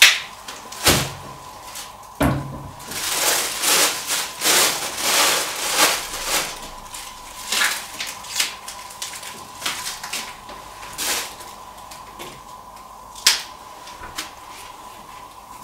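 Plastic grocery bags rustling and crinkling as ginger and green onions are taken out of them, with a few sharp knocks of things being handled on the counter.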